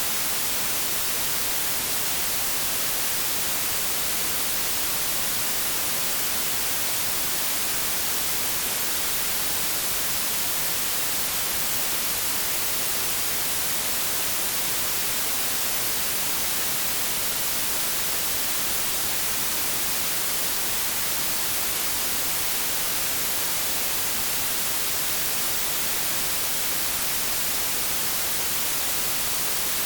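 Steady white noise: an even hiss, brightest in the treble, that does not change.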